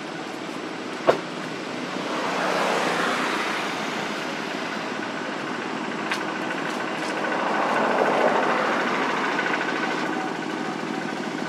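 Steady outdoor background noise that swells twice, with a sharp click about a second in and a fainter one midway.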